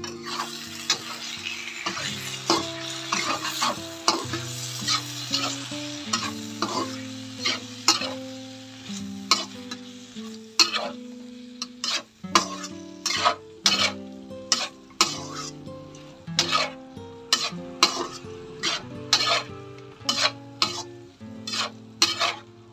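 Chicken and green beans stir-frying in oil in a pan: a steady sizzle, loudest in the first few seconds, with repeated sharp clacks and scrapes of the stirring utensil against the pan as the food is tossed.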